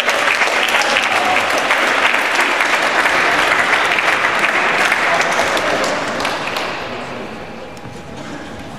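Crowd applauding, a dense patter of hand claps that dies away about seven seconds in.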